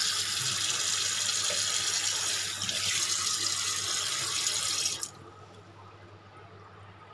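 Kitchen tap running into a steel bowl of fish pieces in a stainless-steel sink, shut off about five seconds in. After that only a faint steady low hum remains.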